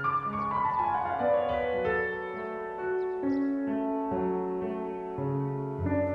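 Piano music in the film score: a run of notes falling in pitch over the first couple of seconds, then slow held notes over a low bass.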